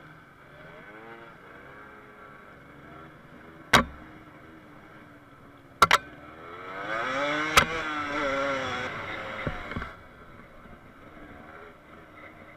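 Off-road motorcycle engine revving, its pitch swinging up and down. It grows loudest near the middle and fades toward the end. Three sharp cracks stand out over it.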